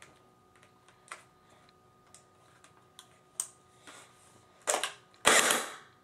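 Battery-powered airsoft Thompson submachine gun replica firing single shots on semi-automatic: a few light sharp clicks about a second apart, then two louder, longer shots near the end.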